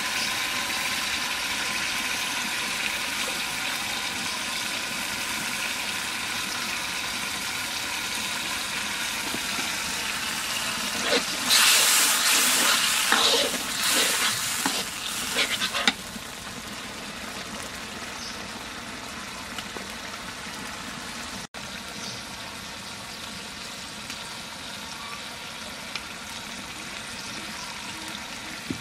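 Chicken curry sizzling and bubbling in a large iron kadai. From about 11 to 16 seconds a metal ladle stirs and scrapes hard through it in loud, irregular bursts, after which it settles back to a steady, quieter simmer.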